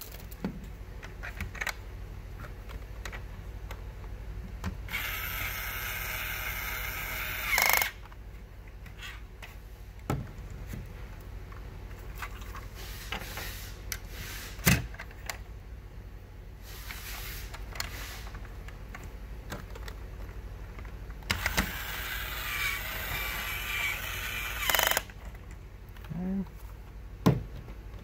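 Small electric motor of a toy power drill whirring in two runs of about three seconds each, driving in the screws that hold the toy car's wheels. Between the runs, plastic parts click and knock as they are handled.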